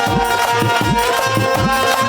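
Instrumental music with tabla: bending dholak/tabla bass strokes in a steady rhythm under a sustained melody line.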